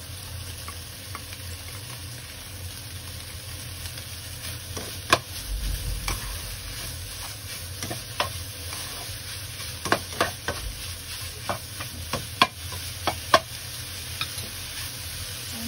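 Chopped nham and scrambled egg sizzling in a wok as they are stir-fried, with a spatula knocking and scraping against the pan a dozen or so times, most often in the second half.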